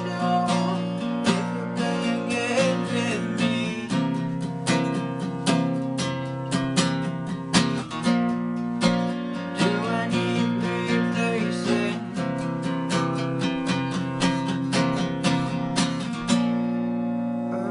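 Steel-string acoustic guitar strummed steadily in an instrumental passage, each stroke ringing into the next. Near the end the strumming pauses briefly and a chord rings on.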